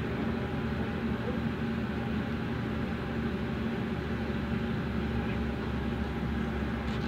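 Gas-station air machine's compressor running steadily, a hum with a hiss, while the pickup's low tire is aired up. A deeper rumble grows stronger about four and a half seconds in.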